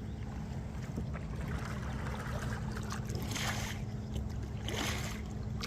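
Two kayak paddle strokes swishing through the water, a second and a half apart, over a steady low hum.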